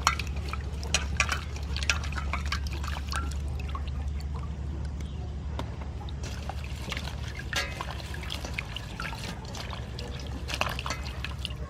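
Water splashing and dribbling as vegetables are washed by hand in a basin, with irregular small splashes over a steady low hum.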